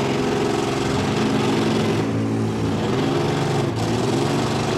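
Engines of several wrecked demolition derby cars running and revving together, their pitch rising and falling as the drivers accelerate and back off.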